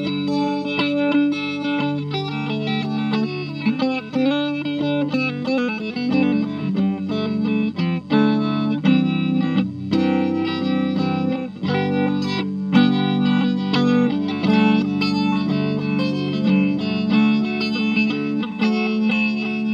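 Electric guitar played through a Spin FV-1 DSP effects board with a modulation effect on. It plays sustained chords and notes that change every second or two, with brief breaks about eight and twelve seconds in.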